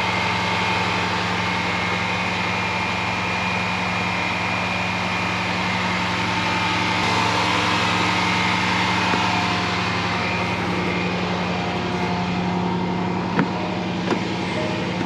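Rebuilt 5.0 V8 engine of a Range Rover Sport idling steadily just after a cold start, running smooth with no sign of trouble. Two short sharp clicks near the end.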